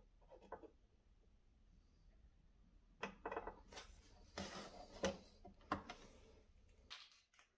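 Faint clicks, taps and brief rustles of multimeter test probes and leads being handled against a small resistor's connector on a wooden workbench, clustered in the second half, with a few sharper clicks.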